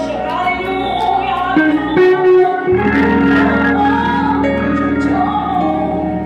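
Organ playing sustained chords that change every second or so, with its low bass dropping out for a moment about two seconds in before coming back.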